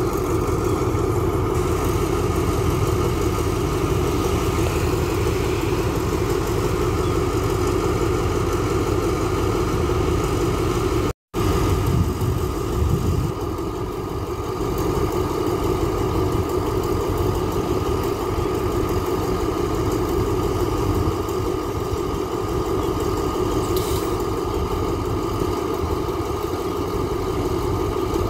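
Alsthom diesel-electric locomotive's diesel engine running steadily with a low hum. The sound cuts out for a moment about eleven seconds in.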